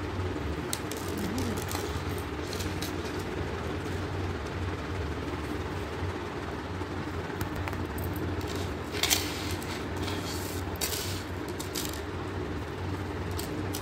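Light metallic jingling and clinking of gold-toned pearl-drop anklets being handled, in a few short bursts about two-thirds of the way through, over a steady low rumble.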